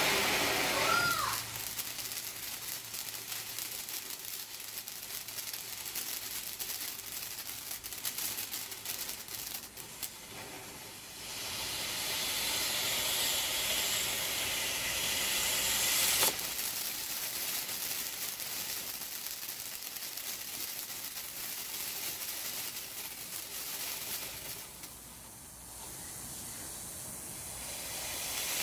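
Black Cat Citrus Fountain firework spraying sparks with a steady, rushing hiss and fine crackling. The hiss dips briefly before swelling again. There is one sharp pop a little past the middle, and the hiss softens near the end.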